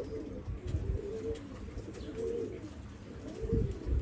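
Domestic pigeons cooing, a run of low, warbling, overlapping coos. There are a couple of low thumps, about a second in and again near the end.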